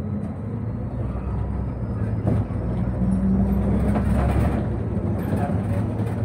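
MAN NÜ 280 city bus's diesel engine running as the bus drives along, heard from inside the bus with a steady low hum and interior rattles. The engine gets louder for a couple of seconds in the middle as the bus pulls away after a turn, with a single knock just before.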